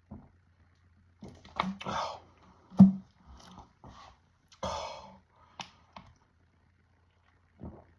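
A person chugging a 2-litre bottle of diet soda: irregular swallows, hard breaths out and small clicks and knocks, the loudest a sharp knock about three seconds in.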